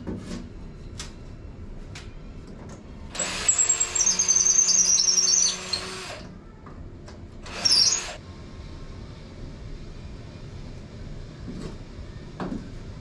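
Power drill running for about three seconds with a high whine, then a second short burst, amid small clicks and knocks of parts being handled.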